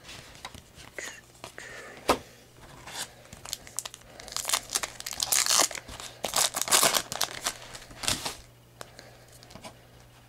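Foil trading-card pack wrapper being torn open and crinkled in the hands, loudest between about four and eight seconds in. A single sharp tap comes about two seconds in.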